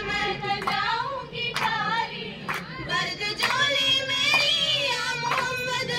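Girls singing a qawwali, the lead voice through a microphone, with sharp hand claps about once a second.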